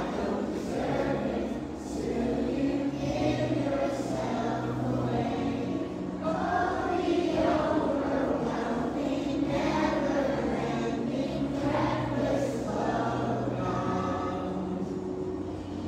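A group of schoolchildren singing a song together, with held low notes underneath.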